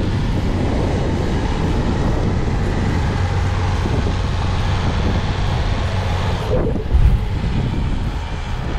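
Pickup truck's engine running hard and steady under load as it ploughs through deep snow, with a loud low thump about seven seconds in.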